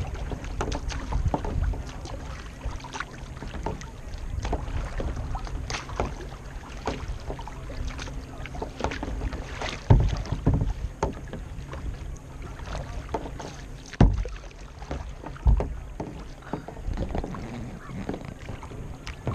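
Kayak being paddled: water splashing and sloshing against the boat, with irregular knocks and a few heavier thumps, about halfway through and again later.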